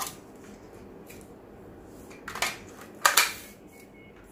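Sharp clicks and knocks from handling a GHK AKMS gas blowback airsoft rifle and its magazine: a small click at the start, another about halfway through, and a louder double clack about three quarters of the way through.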